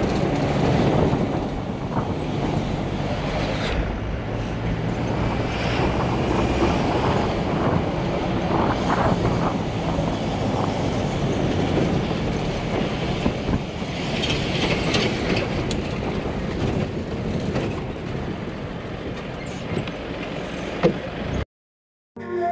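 Inside a moving bus: the engine runs with a steady low drone over road noise, with scattered rattles and knocks from the bus body. It cuts off suddenly about a second before the end.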